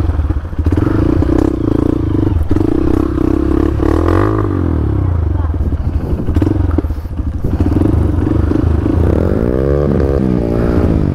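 Trail motorcycle engine running steadily, its revs rising and falling about four seconds in and again twice near the end.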